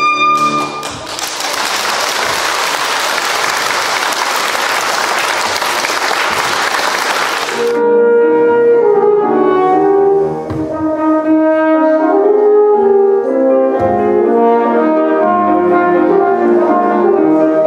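A trumpet's last note ends and gives way to audience applause lasting about seven seconds, which cuts off abruptly. A French horn then plays a melodic line with piano accompaniment.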